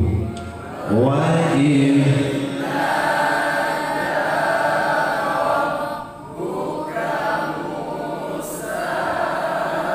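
A group of voices chanting a Qur'an passage together in the melodic tilawah style, after one voice opens the phrase with a gliding melody. The group breaks off briefly about six seconds in, then goes on.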